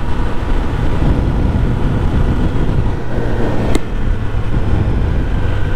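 Kawasaki Ninja ZX-10R's inline-four engine running at low revs as the bike rolls along slowly, under a heavy rumble of wind on the microphone. A single sharp click comes a little past the middle.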